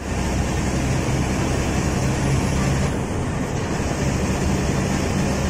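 Diesel bus engine running at cruising speed, heard from inside the driver's cabin: a steady low drone under continuous road and wind noise.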